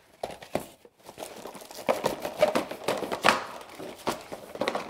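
Plastic cling wrap crinkling and crackling as it is pulled from its box and stretched over a bowl, a busy run of irregular crackles that picks up about a second in.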